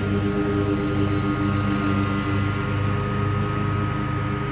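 Commercial Bobcat zero-turn mower's engine running steadily while mowing thick grass, a low throb about twice a second under a steady high whine.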